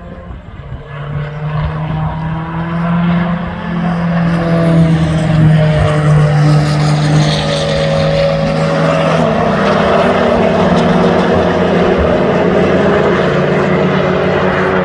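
Several racing cars' engines under hard acceleration, approaching and passing, several engine notes overlapping. The sound swells over the first few seconds and stays loud, with a shift in engine pitch about nine seconds in.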